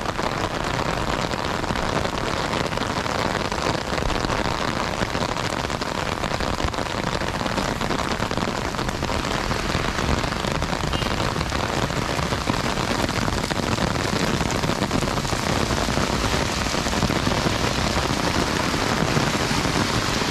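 Heavy rain shower falling steadily, an even, unbroken hiss of rain.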